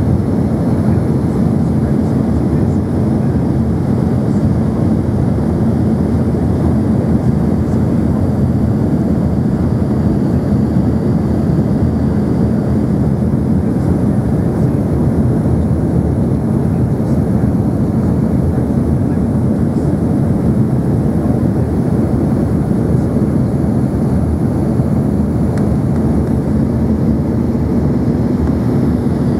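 Steady cabin noise inside an Embraer ERJ-145XR regional jet on approach: a constant rumble of airflow and the rear-mounted turbofan engines with a low hum running through it.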